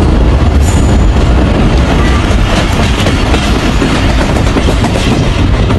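Passenger train running along the track, heard loud and close from an open coach window: a steady rumble of wheels on rails with clickety-clack wheel clatter.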